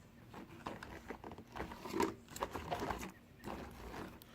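Scratchy rubbing and irregular light clicks of a microfiber cloth wiping debris out of the plastic window-switch opening in a car door.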